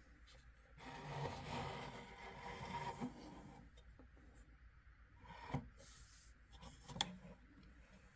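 Handling noise: something rubs or scrapes against a surface for about three seconds, then two light knocks, one about two seconds after the other.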